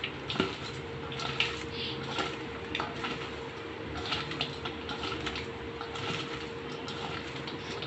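A hand rubbing and pulling apart freshly sliced raw onions in a steel bowl to separate the layers, making an irregular rustling and crackling of onion pieces.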